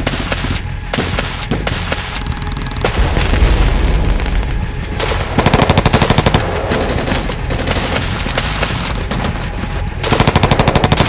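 Automatic gunfire in rapid bursts, with a deep boom about three and a half seconds in. The loudest are two long, rapid bursts, one about five seconds in and one near the end.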